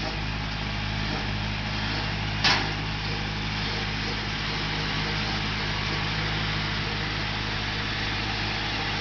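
International tractor running steadily, driving a brush hog rotary cutter through grass and brush. One brief sharp click about two and a half seconds in.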